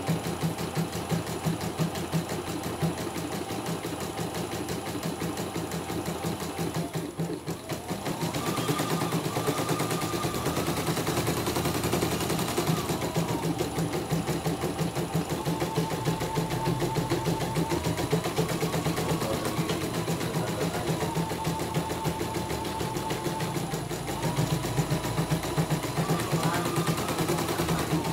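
CNY E900 computerized embroidery machine stitching at speed on a test run after repair: a rapid, even needle clatter over a whine that steps up and down in pitch as the machine runs. It breaks off briefly about seven seconds in.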